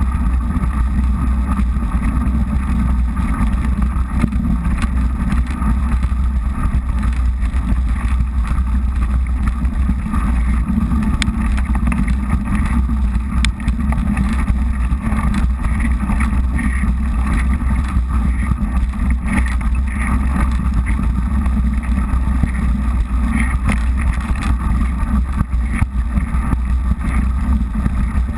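Mountain bike rolling fast over a frozen, crunchy dirt trail, heard through a GoPro as a steady low rumble of tyre noise and wind buffeting on the microphone, with scattered small knocks from the rough ground.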